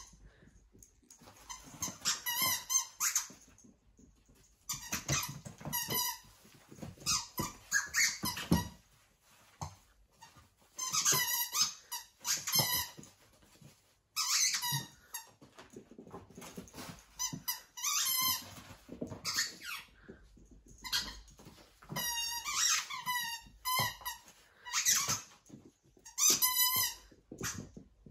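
A miniature dachshund puppy chewing a squeaky ball toy. The toy squeaks in quick runs of several squeaks, with short pauses between the runs.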